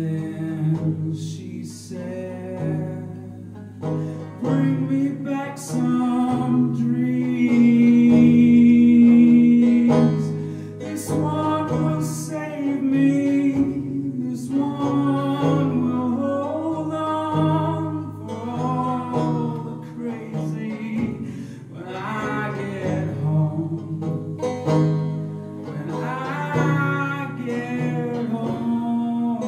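A man singing a folk song while accompanying himself on a six-string banjo-guitar. A long held note about eight seconds in is the loudest part.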